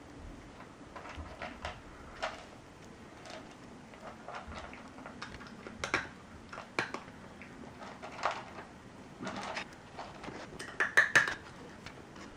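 Cat eating from a plastic bowl: irregular clicks and smacks of chewing and of the bowl being knocked, with a quick run of louder clicks near the end.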